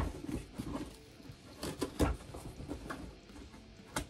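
A cardboard parcel being cut open with a knife: scraping and rustling at the packing tape, with a few sharp knocks and taps as the box is handled.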